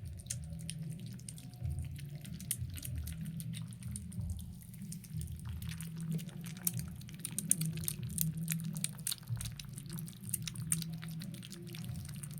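Kittens eating: a steady run of small, irregular wet clicks from chewing and lapping, over a low steady hum.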